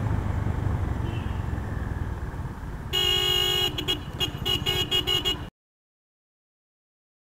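Motorcycle engine running with a low rumble, then a vehicle horn sounds once, held for most of a second, followed by a quick string of short honks. The audio cuts off suddenly about five and a half seconds in.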